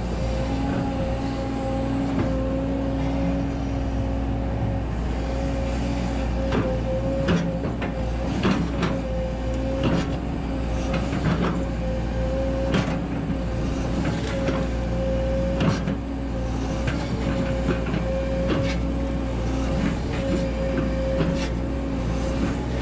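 Volvo EC140DL hydraulic excavator running steadily under working load, heard from the operator's cab: an engine rumble with a constant whine over it. From about six seconds in come irregular clanks and scrapes as the bucket digs into stony soil in the trench.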